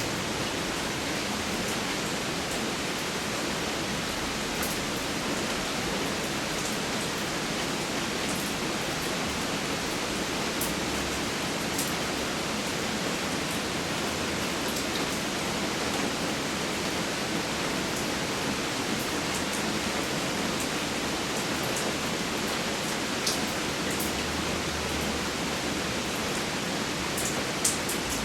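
Steady rain falling, a dense even hiss, with scattered louder drops ticking, several of them near the end.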